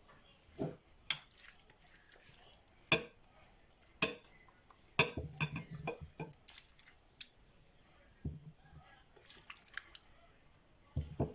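Irregular clinks and knocks against a glass jar as a chopped ginger, citrus and honey mixture is added to it, with soft wet squishing and dripping between the clinks.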